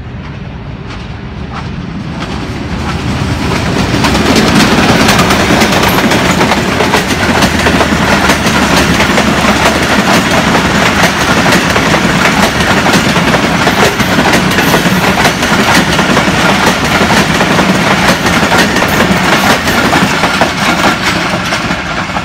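Diesel-hauled passenger train passing close by: the locomotive grows louder over the first few seconds, then the coaches' wheels clatter over the rail joints in a steady rapid clicking, easing off near the end as the last coach goes by.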